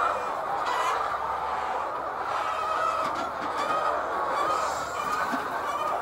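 A large flock of laying hens clucking and calling all together in a steady din, with a few sharper individual calls standing out above it.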